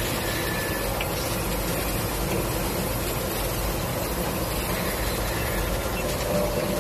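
Steady hum and noise of a running super spacer insulating glass production line, its conveyor and carriage machinery working.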